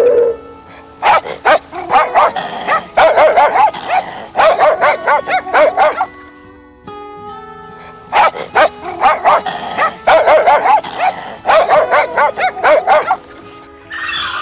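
A dog barking in two quick runs of many barks each, with a pause of about two seconds between them, over background music.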